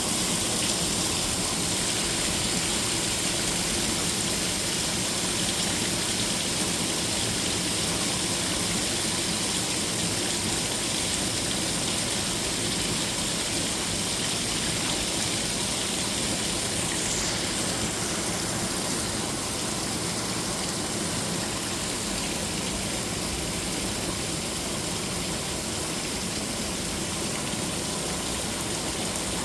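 Steady rain with running storm water, an even hiss throughout.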